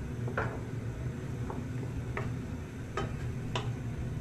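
Chopped tomatoes being stirred in a nonstick frying pan: a cooking utensil clicks and taps against the pan about five or six times at uneven intervals, over a low steady hum.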